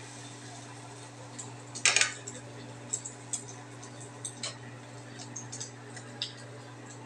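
Metal spatula and crockery clinking and clattering: a loud burst of clatter about two seconds in, then scattered light clicks, over a steady low hum.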